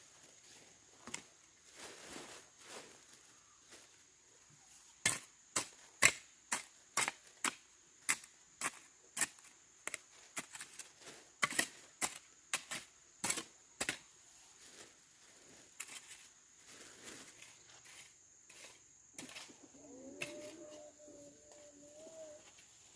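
A run of sharp knocks, about two a second, from roughly five to fourteen seconds in, then a few scattered weaker knocks; near the end a brief wavering pitched sound rises and falls.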